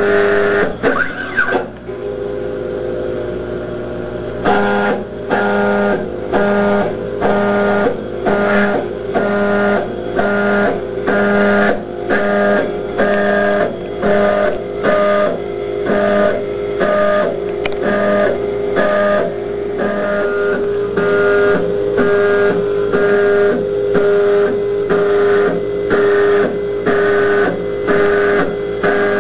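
Desktop CO2 laser cutter's stepper motors whining in short stop-start moves as the head traces finger-joint edges in plywood, with a steady hum underneath.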